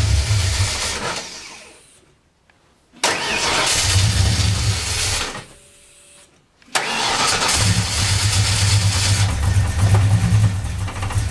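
A 1989 Mustang fox body's 302 V8 with Edelbrock heads, running and revved in three long bursts, dropping low between them. The engine is running again now that a fried coil wire has been replaced.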